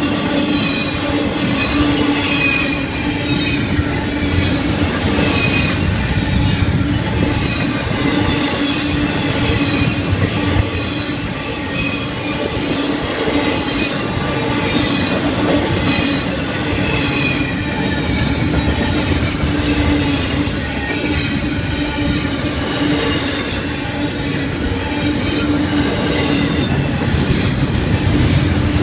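Florida East Coast Railway intermodal freight cars rolling steadily past at speed: a continuous rumble of wheels on rail, with clacks over rail joints and a high squeal from the wheels.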